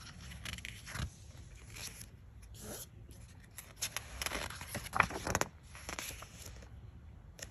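Pages of a book being turned by hand: paper rustling and flicking in several short bursts, the sharpest about five seconds in, then settling down.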